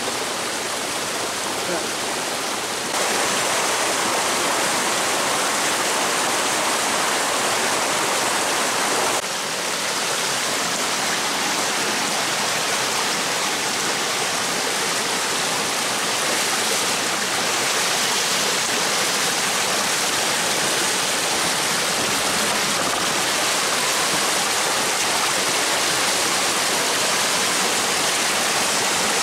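A small mountain brook rushing over rocks and little cascades, heard up close as a steady wash of water noise. It jumps louder about three seconds in.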